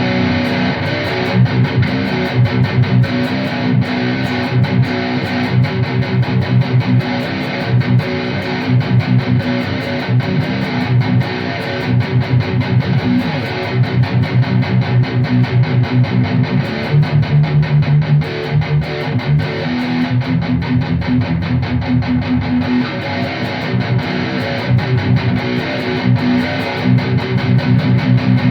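Distorted electric guitar, an ESP E-II Horizon with EMG pickups, played through the amp's dry rhythm channel with no boost and pitched down from E standard to B by a Digitech Drop pedal, playing a chugging rhythm riff of fast repeated low notes. This far down the pitch shift starts, in the player's words, to flub out and struggle.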